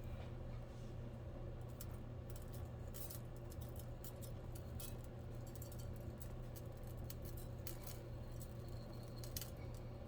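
Scattered faint clicks and light scraping over a steady low hum.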